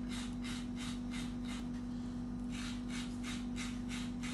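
Rhythmic rasping, rubbing strokes at about four a second, pausing briefly midway, over a steady low hum.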